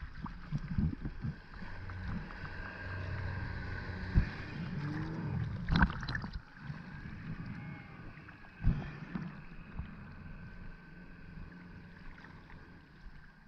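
Outboard motor of a small center-console boat running as the boat pulls away, heard from water level, with water slapping and splashing against the camera a few times. The engine grows fainter in the second half.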